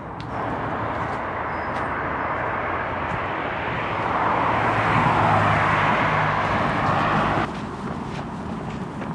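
A motor vehicle's engine and road noise, swelling towards the middle and cutting off suddenly about seven and a half seconds in.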